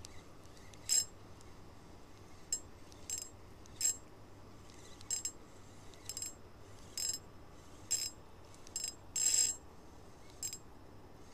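Small spinning reel, a Hinomiya Terracotta Mighty 1000, with its drag buzzing out line in about a dozen short, irregular bursts. The longest burst comes near the end. This is typical of a fish pulling against the light drag.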